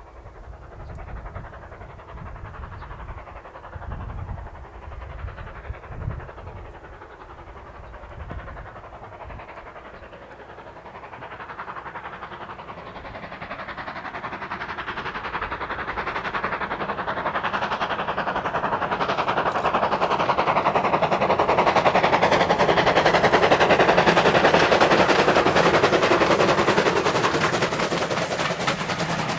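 Steam-hauled passenger train approaching and passing close by: the locomotive's rapid exhaust beats and the coaches' wheels on the rails swell steadily, loudest about three-quarters of the way through, then begin to ease.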